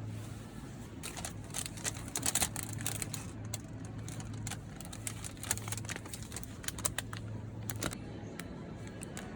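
A run of irregular, sharp clicks and taps over a steady low hum.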